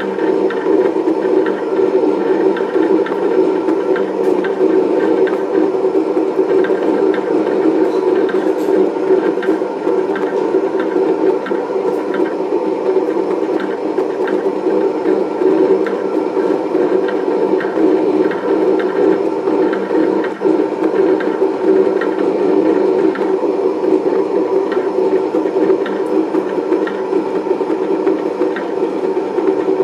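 Monu-cut 24-inch cutting plotter running as it cuts sheet material. Its motors drive the cutter carriage and feed rollers, making a steady mechanical whir with fast small fluctuations.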